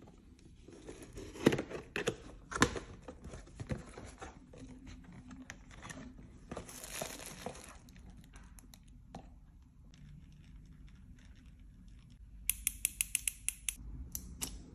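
Unboxing handling noise: a cardboard box being opened, with two sharp knocks early on, and plastic bubble wrap crinkling as a baitcasting reel is lifted out. Near the end comes a quick run of about eight sharp clicks in just over a second.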